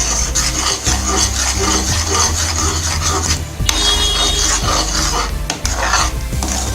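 A ladle scraping round a pan as it stirs thick Mysore pak mixture of gram flour, sugar syrup and ghee in repeated strokes. It is kept moving so the mixture doesn't stick and burn.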